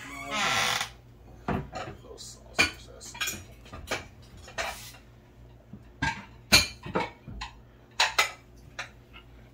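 Ceramic dinner plates clattering and clinking against each other as they are lifted down from a kitchen cabinet and stacked. A brief scrape about half a second in, then sharp clinks at irregular intervals, several louder ones in the second half.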